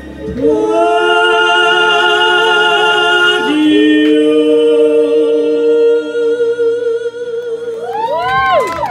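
Two amplified singing voices hold the long final notes of a duet. A lower voice joins the held note about three and a half seconds in, and the singing ends in a short wavering up-and-down vocal run near the end.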